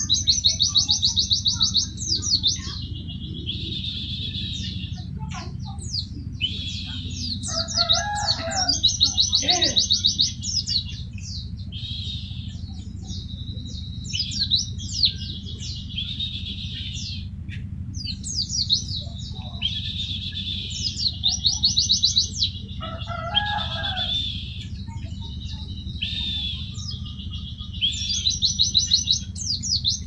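White-eye (pleci) singing its rapid-fire 'tembakan' song: high, very fast stuttering trills in bursts of one to two seconds, repeated every few seconds. A steady low hum runs underneath.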